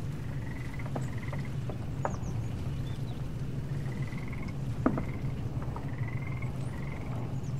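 Animal calls: short trilled notes repeating every half second to a second, over a steady low hum, with scattered clicks and one sharper click about five seconds in.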